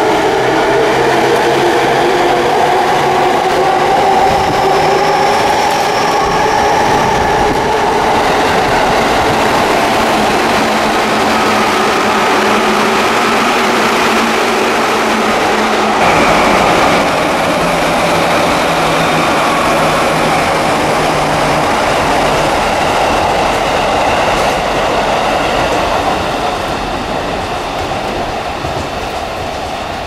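Electric commuter train of the JR Yamanote Line pulling away along the platform, its motor whine rising in pitch as it accelerates, over a continuous rumble of wheels on rail. The sound grows fainter over the last few seconds.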